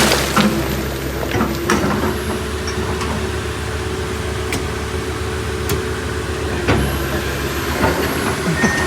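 Backhoe's diesel engine running steadily, with a few sharp knocks from the machine's working.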